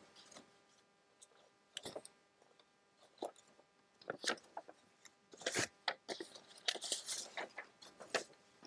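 Paper ephemera being handled: sheets and small card pieces rustling and crinkling in short, irregular bursts, busiest in the second half.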